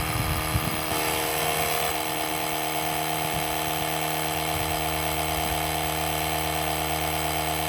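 Portable tire compressor built into an Andeman battery jump starter, running steadily with an even mechanical hum while it inflates an ATV tire toward a 12 psi preset.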